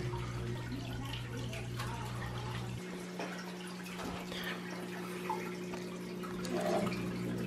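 Saltwater aquarium water splashing and dripping lightly as a hand works in the tank, over a steady low hum.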